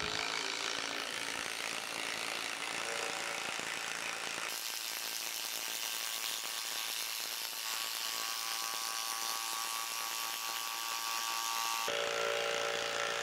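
DeWalt 12V brushless impact driver hammering continuously as it drives a long screw into a dense wood stump, labouring against the tough wood.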